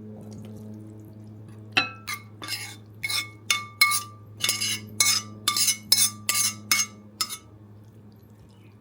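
Spoon or utensil clinking against dishes: a quick run of sharp, ringing clinks, from about two seconds in until about seven seconds, over a steady low hum.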